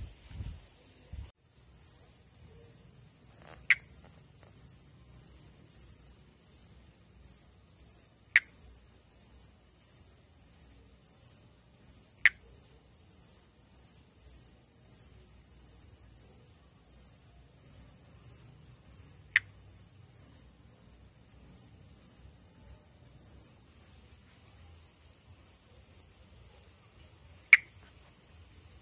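Monkey tree frog (Pithecopus nordestinus) calling: five very short, sharp single notes, several seconds apart. Behind them insects keep up a steady high drone and a regular high chirp of about one and a half a second, which stops a few seconds before the end.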